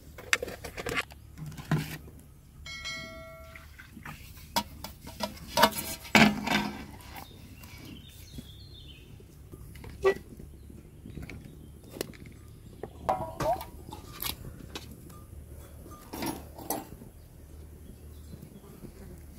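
Scattered clinks and knocks of metal pans and a metal serving tray being handled while flatbreads are dipped in melted butter and stacked. A short pitched call sounds about three seconds in.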